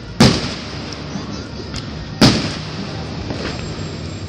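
Aerial fireworks shells bursting: two loud booms about two seconds apart, each dying away slowly in echo, with a few faint pops between them.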